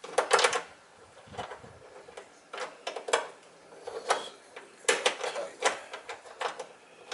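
Irregular metal clicks and clacks, some in quick clusters, as the end fitting of a hood gas strut is pressed and worked against its ball stud without snapping on.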